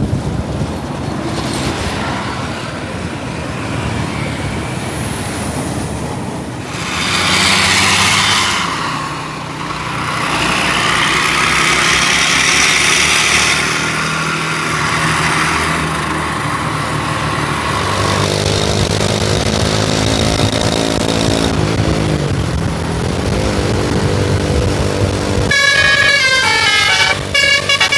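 Tour bus passing with engine and road noise, sounding its basuri telolet horns; near the end the horns play a quick, stepping multi-note melody.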